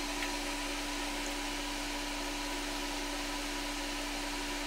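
Steady hiss and whir of Manchurian balls deep-frying in hot oil on an induction cooktop, with a constant electrical hum underneath.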